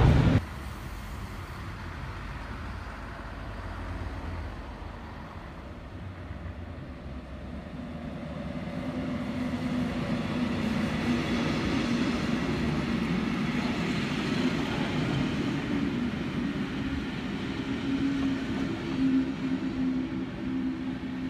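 A Bombardier TRAXX P160 DE (class 246) diesel-electric locomotive hauling a passenger train past at a station. A low rumble of the train rises after about eight seconds into a steady engine drone.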